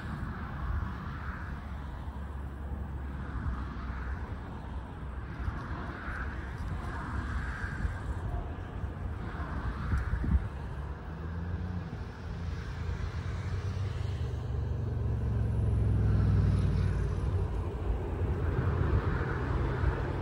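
Electric locomotive-hauled passenger train approaching on the main line, a low rumble and hum that grows louder over the last several seconds, with wind rumbling on the microphone.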